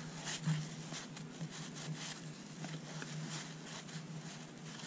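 Faint rustling and soft flicks of 1981 Fleer baseball cards being slid by hand from one stack to the other.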